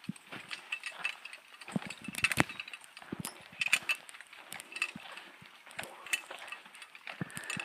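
Footsteps on a dirt trail with the metal hardware of zipline harnesses clinking and jingling irregularly as people walk.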